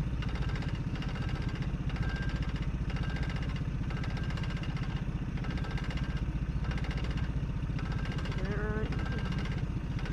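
Small boat outboard motor idling steadily, a low even hum with a fast pulse that holds the same pitch throughout.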